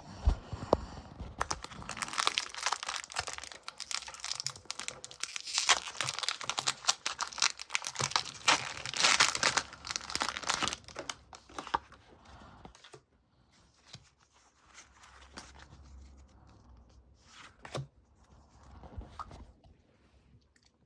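Foil Pokémon booster pack wrapper being torn open and crinkled: dense crackling for about ten seconds, then fainter scattered rustles and clicks.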